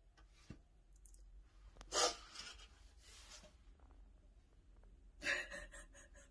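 A woman breathing out in a long, breathy sigh about two seconds in, then a shorter breathy gasp near the end, emotional after reading a positive pregnancy test.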